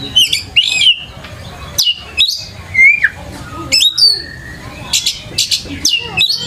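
Oriental magpie-robin (kacer) in vigorous full song, the 'gacor' singing of a bird in top form: quick phrases of loud, high whistled notes sweeping up and down, mixed with sharper notes and separated by short pauses.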